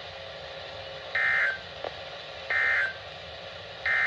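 Emergency Alert System end-of-message (EOM) digital data bursts: three short, identical buzzy chirps about 1.4 seconds apart, the last cut off at the end. They signal that the alert broadcast is over. A single faint click falls between the first two.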